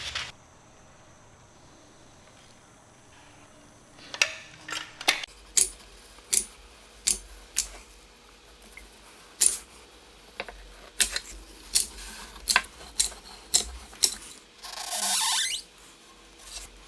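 Small hand-work noises while sealant is worked around a pipe in an aluminum boat transom: a run of sharp clicks and squeaks, spaced about half a second to a second apart, then a brief rasping burst near the end.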